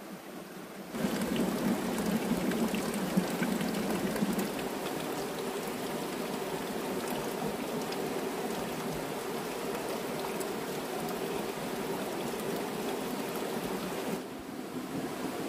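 Steady rush of running water, like a forest stream, that starts suddenly about a second in and cuts off near the end.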